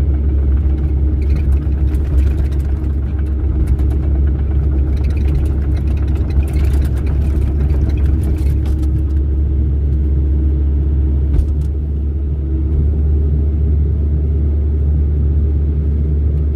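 Excavator diesel engine running with a steady low rumble. Scattered metallic clicks and clanks come through during the first half.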